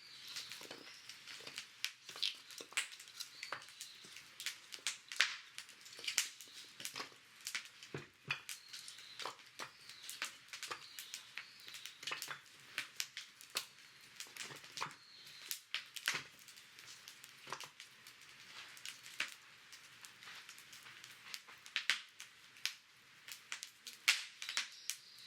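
Dry wood and kindling crackling and snapping irregularly, many sharp pops at uneven intervals, in a brick fire pit.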